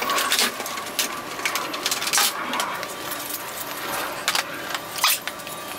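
Rapid metallic clinking and rattling of hand tools and dash hardware being worked loose inside a car's cabin, with a faint steady whine underneath.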